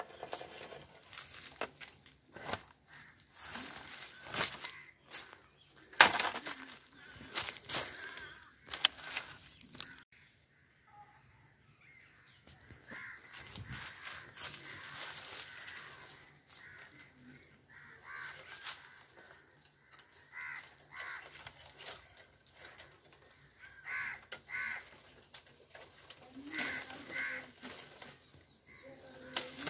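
Leaves rustling and twigs cracking as a fruit-picker pole is pushed and twisted through a mango tree's branches, in a run of short sharp crackles. Birds call now and then, mostly in the second half.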